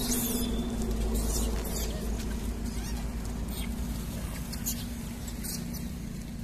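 A large troop of macaques feeding on scattered watermelon pieces, with short high-pitched squeaks and scuffling dotted through a steady low background hum.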